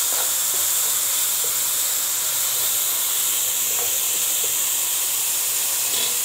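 Chopped parsley, onion and garlic sizzling in hot oil in a frying pan: a steady hiss. A metal spoon stirring through them gives a few faint ticks.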